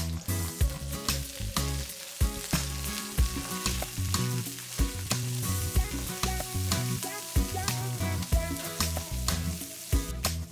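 Chicken and onion stir-fry sizzling in hot oil as it is stirred, with frequent sharp clicks and scrapes of the spatula against the pan. Background music plays underneath.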